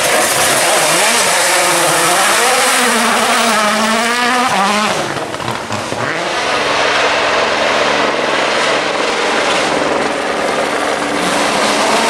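World Rally Car engines, 1.6-litre turbocharged four-cylinders, driven flat out on a gravel stage. For about the first five seconds the engine note climbs and drops sharply again and again through gear changes; after a brief dip it settles into a steadier, held note.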